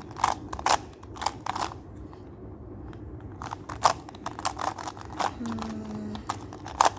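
Plastic puzzle cube being turned in quick moves: a run of sharp clacking clicks at a few per second, with a lull of about a second near the middle.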